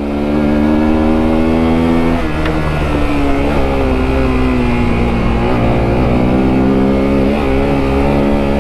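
Sinnis Terrain T125's 125 cc single-cylinder engine pulling under load off-road. The engine note sags slightly through the middle and climbs again towards the end, over a low rumble of wind and tyres.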